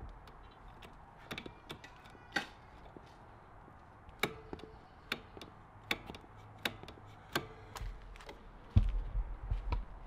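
Rear brake pedal of a Suzuki Hayabusa being pumped by foot, a sharp click with each stroke, about one every three-quarters of a second for much of the time: the strokes push the fully retracted rear caliper pistons back out against the new pads. A louder thump comes near the end.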